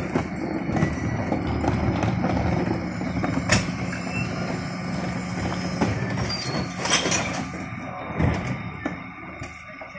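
Refuse truck engine running steadily under hydraulic load while a Terberg OmniDEL bin lifter works, raising and tipping a wheelie bin into the Heil Powerlink body. Sharp knocks sound about three and a half seconds in and again around seven seconds as bins clatter on the lifter. The running eases after about seven and a half seconds, and a thump comes soon after.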